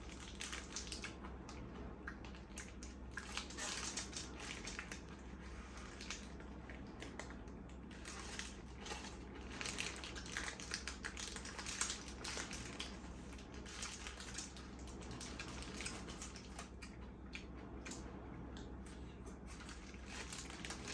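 Close-miked chewing of a spicy egg burger: irregular wet crunching and crackling bites and chews, with a steady low hum beneath.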